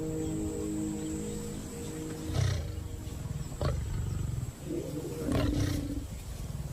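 African lion giving a series of deep roaring grunts, three or four about a second apart, starting about two seconds in over soft background music.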